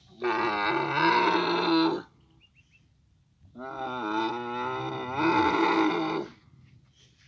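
Dromedary camels calling while mating: two long, loud, pitched calls, the second starting about three and a half seconds in and wavering in pitch at its start.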